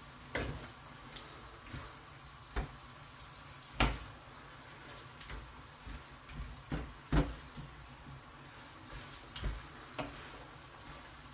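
Stir-fry being tossed in a wok: a utensil knocks and scrapes against the pan at irregular moments over a low, steady sizzle.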